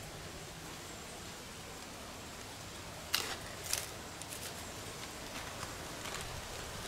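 A clear plastic bag crinkling in two sharp bursts a little over three seconds in, about half a second apart, then a few lighter rustles, over a steady faint outdoor hiss.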